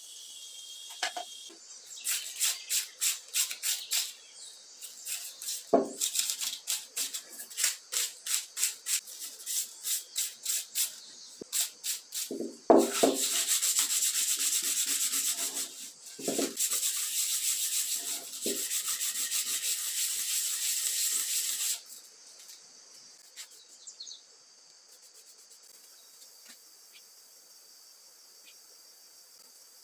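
Sandpaper rubbed by hand over the cut end grain of a wooden log: quick back-and-forth strokes, about two or three a second, then a stretch of fast continuous sanding, with a few dull knocks, that stops abruptly about eight seconds before the end. After it, crickets chirp steadily in the background.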